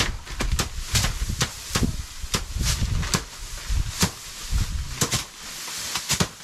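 Rice being threshed by hand: bundles of cut paddy stalks beaten down again and again onto a tarp-covered floor, irregular sharp thwacks a few times a second as several people strike at once.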